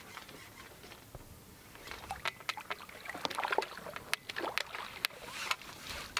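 Irregular light clicks and knocks of fishing tackle being handled, starting about two seconds in, over a faint hiss.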